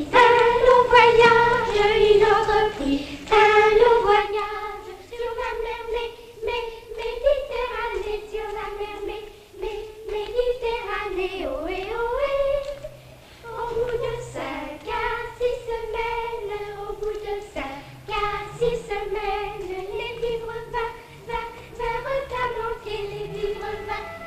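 Young girls' voices singing a children's round-dance song together, one simple melody without accompaniment.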